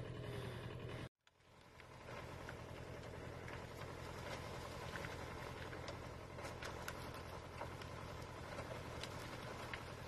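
Engine of a forest cable crane running steadily with a low hum, with scattered faint ticks over it. About a second in, the sound cuts out abruptly, then fades back up.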